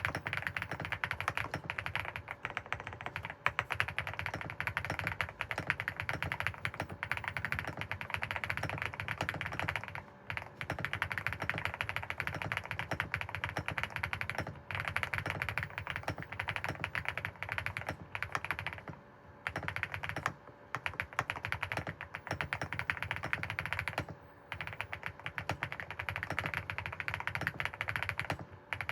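Fast, continuous typing on an EVO80 custom mechanical keyboard, a dense stream of keystroke clacks broken by short pauses a few times.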